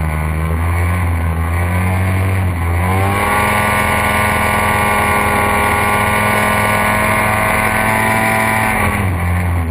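Hovercraft engine running under way, heard from on board. It revs up about three seconds in, holds a higher steady pitch, then eases back down near the end.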